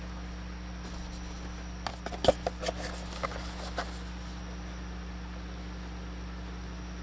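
A quick run of light clicks and taps from handling plastic action-figure packaging and accessories, loudest about two seconds in and over by four seconds, over a steady low electrical hum.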